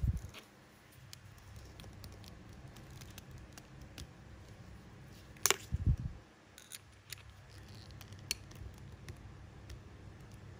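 Light clicks and ticks from a steel fishing hook and monofilament line being handled while a knot is tightened. There are two dull thumps, one at the start and one about six seconds in, the second just after a sharp click.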